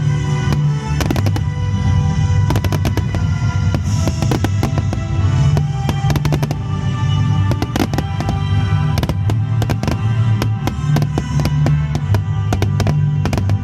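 A starmine fireworks barrage: a dense run of bangs and crackles, many in quick succession, over loud music playing throughout.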